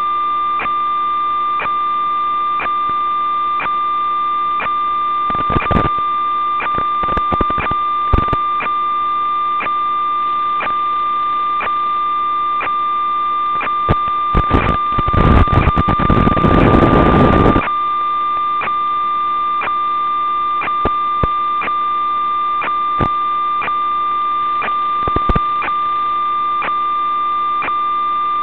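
Steady electronic hum with a high whine and regular clicks about one and a half a second, from the audio channel of an analog FPV video link. A loud burst of static hiss lasts about three seconds past the middle, with shorter crackles earlier, where the video signal breaks up.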